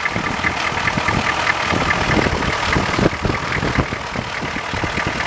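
Diesel truck engine idling at normal warm idle just after start-up, with a rapid, even clatter, its fast-idle solenoid now off.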